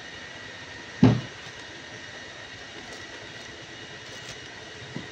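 Steady workshop machinery drone with a constant high whine, broken by one sharp knock about a second in and a lighter knock near the end. Plastic stretch film crackles faintly as it is pulled around a cylinder head.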